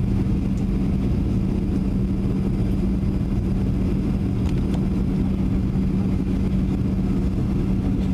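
Boeing 737-700 cabin noise on approach: a steady drone of the CFM56 engines and rushing air, with a constant low hum running through it.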